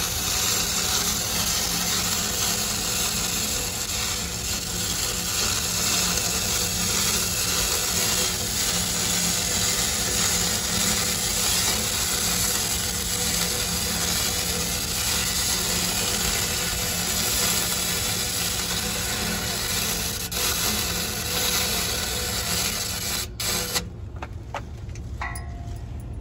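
Stick-welding arc burning on a steel pipe joint, a steady sizzling noise that cuts off near the end when the arc is broken.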